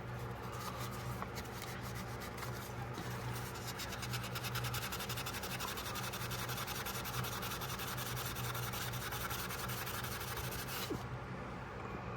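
Fine sandpaper rubbed rapidly back and forth over the steel of an old pocketknife, a steady scratching that stops about a second before the end, scouring off a spot of rust.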